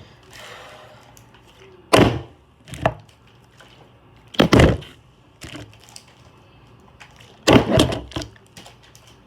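A water bottle being flipped and landing on a hard surface: three sharp knocks a couple of seconds apart, each followed by smaller knocks as it tips or bounces, the last a quick cluster.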